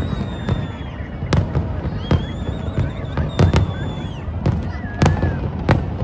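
Fireworks show: a string of sharp bangs from bursting shells, irregularly spaced about half a second to a second apart, over a steady rumble, with high wavering whistles that fall away at their ends.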